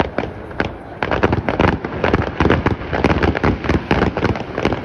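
Fireworks display shells bursting in quick succession: a rapid run of sharp bangs and crackles, several a second, getting denser and louder about a second in.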